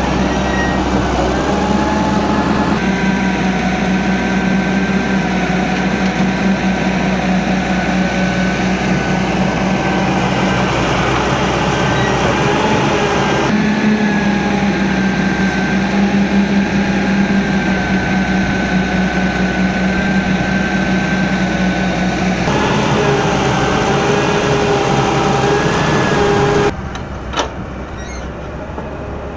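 Fiat-Hitachi FH130W.3 wheeled excavator's diesel engine running under load with a steady high whine while it digs and swings loads of soil. The sound changes abruptly several times and turns quieter near the end.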